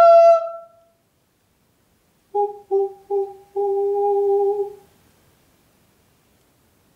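A man's voice ends a sung note that has glided up about an octave, fading out just under a second in. Then, from a little over two seconds in, he hums a short phrase on one pitch: three short notes and one long held note.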